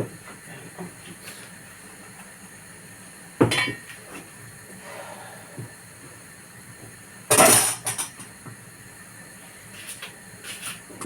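Pots and cooking utensils clattering: a sharp knock about a third of the way in, and a louder, longer clatter past the middle, with small clinks in between.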